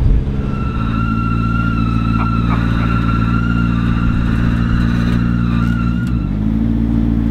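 A transporter's hydraulic liftgate whining steadily as it lowers a car, over a steadily idling engine. The whine stops about six seconds in, and the engine note steps up just after.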